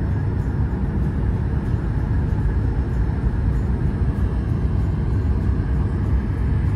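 Steady low rumble of jet engines and rushing air inside an airliner's cabin during the descent on final approach.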